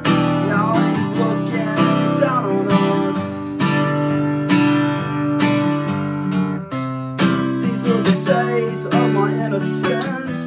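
Unamplified acoustic guitar strumming a steady run of chords, with a wavering higher melody line over them early on and again near the end.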